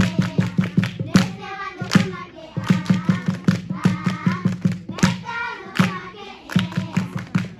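Voices singing together to a steady beat, with rhythmic hand clapping.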